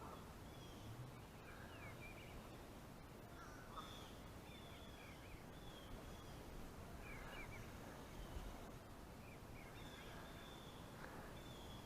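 Faint birdsong: short chirps repeating every second or so over a quiet background hiss.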